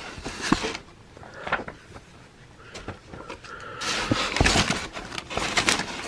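Crumpled packing paper rustling and a cardboard shipping box being handled as magazines are pulled out, with a few soft knocks.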